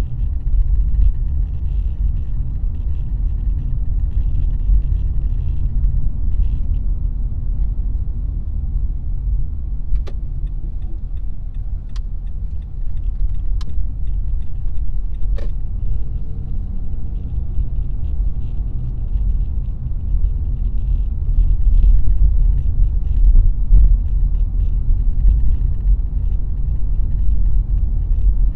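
A car on the move: steady low rumble of engine and road noise. Four sharp clicks or knocks come a second or two apart near the middle.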